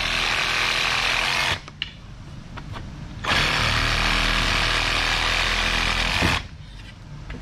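Cordless reciprocating saw with a Bosch wood-and-metal blade sawing through a wooden broom handle in two runs. The first stops about a second and a half in; the second starts about three seconds in and lasts about three seconds.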